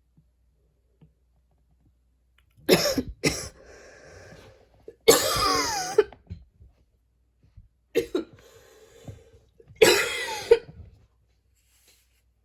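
A person coughing hard in several fits, about five coughs starting a couple of seconds in, with quieter breathing in between.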